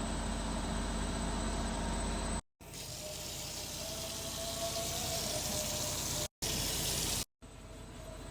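Kitchen tap running water, heard as a steady rushing hiss in several short clips that cut off abruptly three times.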